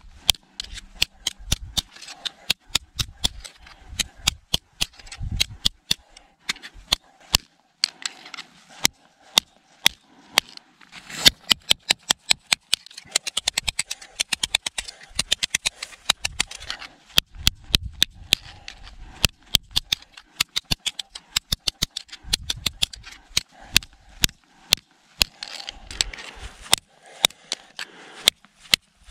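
Tip of a Cold Steel SR1 tanto pocket knife (CPM S35VN steel) repeatedly jabbing and grinding into a stone block, crushing the stone to powder: a long string of sharp irregular clicks and ticks, with quick rapid runs of taps around the middle.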